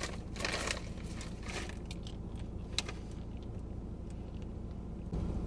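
Plastic sweet bag crinkling as it is handled, mostly in the first second and a half, followed by a few faint small ticks over a low steady rumble.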